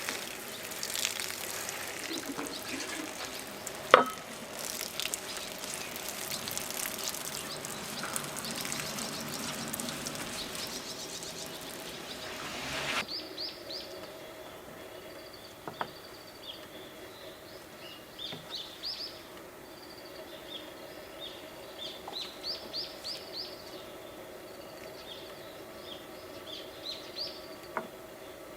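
Rain pattering steadily, with one sharp knock about four seconds in. The rain cuts off abruptly about halfway through, and birds chirp in short, quick series over a quiet background.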